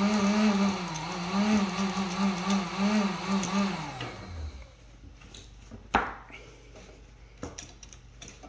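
A 1500-watt heat gun's fan motor runs with its speed wavering up and down as power reaches it through an arcing wire connection. About four seconds in it winds down and stops. A sharp click follows about two seconds later.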